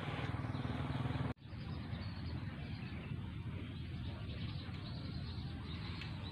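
Faint outdoor background noise. A low, steady hum cuts off abruptly a little over a second in, leaving quieter rural ambience.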